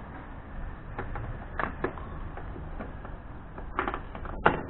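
A few scattered clicks and knocks, the loudest near the end, as the Suzuki LTZ 400's electric starter motor is worked out of its mounting on the engine.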